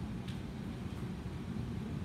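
Room tone: a steady low rumble with two faint clicks, one early and one about a second in.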